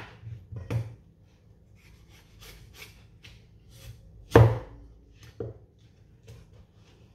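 Cleaver slicing through raw peeled potatoes and knocking on a wooden cutting board: a series of irregularly spaced cuts, the loudest about four and a half seconds in.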